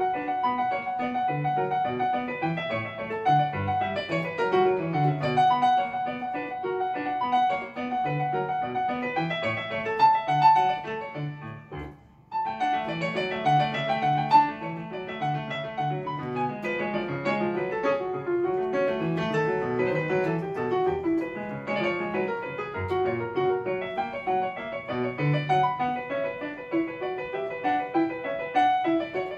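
Electronic keyboard on its piano voice playing a classical piece, with a short break about twelve seconds in before the playing resumes.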